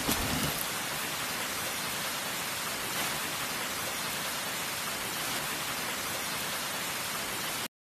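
Steady heavy rain, an even hiss of downpour, that cuts off suddenly near the end.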